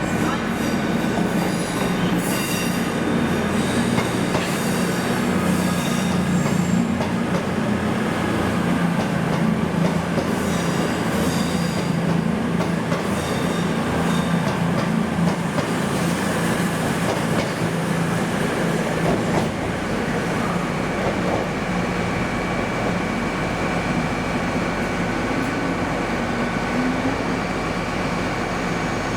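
Train moving through a station over a steady low hum, its wheels squealing on the rails now and then in the first half.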